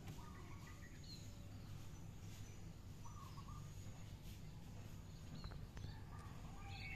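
Faint steady background hum with a few short, high chirps scattered through it and a faint click or two.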